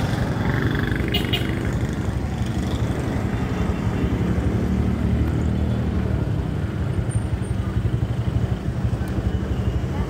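Tricycle's motorcycle engine running steadily at low speed, a continuous low engine drone.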